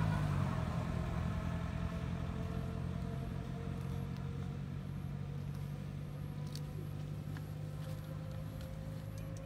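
A motor vehicle engine running steadily with a low hum, slowly fading. A faint high-pitched pulse repeats a little under twice a second from a few seconds in.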